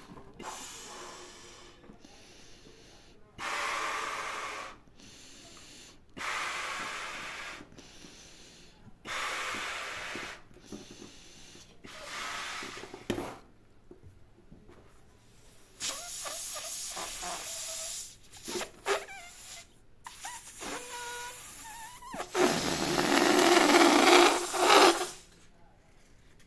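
Rubber balloons with air rushing through them in about six separate bursts of one to two seconds, the last and loudest near the end, with a few short squeaks of stretched rubber in between.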